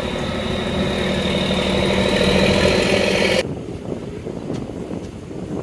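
A train's locomotive engine running loud and steady, its pitch creeping slightly upward, cut off abruptly about three and a half seconds in, leaving a quieter rushing noise of the moving train.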